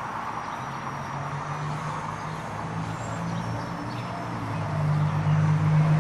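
Walkera 4#3B micro RC helicopter with a brushless motor flying in high wind: a thin, high motor whine that wavers slightly in pitch over a low rotor hum, which grows louder about five seconds in. Wind rushes over the microphone throughout.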